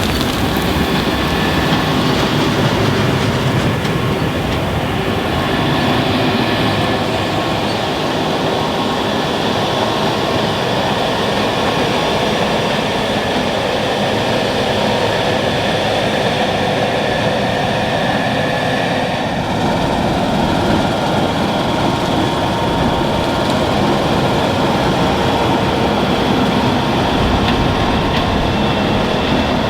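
Case IH 6160 Axial-Flow combine running steadily under load while harvesting wheat: a continuous mechanical rumble of engine and threshing machinery, with a few steady tones over it.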